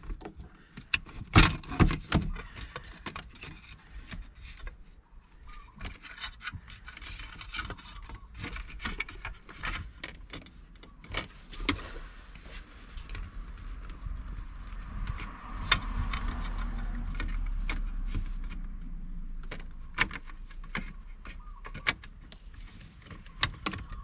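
Scattered plastic clicks, taps and rattles as the shifter trim plate of a 2008 Nissan Frontier's center console is handled and worked down around the gear shift. A low rumble swells and fades in the middle.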